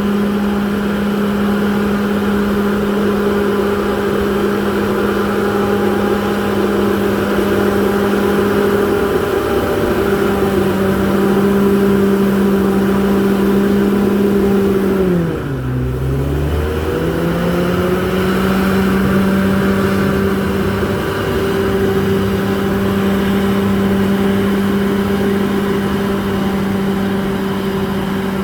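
Komatsu D68ESS bulldozer's diesel engine running steadily at high revs. About halfway through, its pitch drops sharply and then climbs back up.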